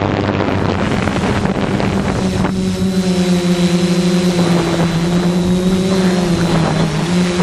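ZionEX460 multicopter's electric motors and propellers buzzing steadily in flight, the pitch shifting and dipping as the motors work against strong wind, with wind noise on the microphone.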